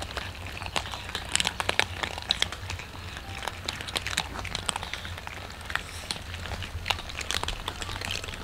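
Several cats crunching dry kibble together: a dense, irregular crackle of many small bites.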